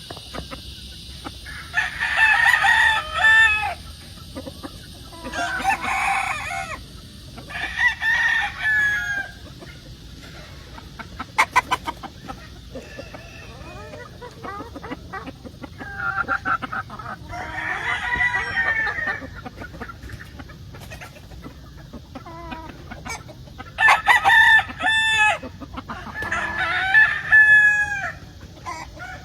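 Roosters crowing again and again, about six crows of a second or two each, some overlapping, with softer chicken calls in between. A quick rattle of clicks comes near the middle.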